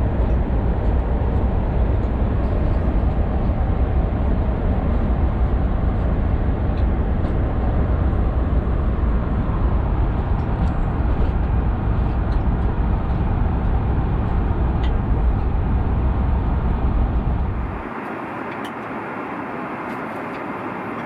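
Steady cabin noise of an airliner in flight, a dense rumble of engine and airflow. About 18 s in it drops to a quieter, thinner hiss with the deep rumble gone, with a few faint clicks.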